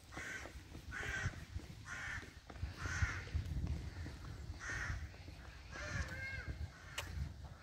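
Crows cawing: about half a dozen harsh caws, roughly a second apart, over a low rumble.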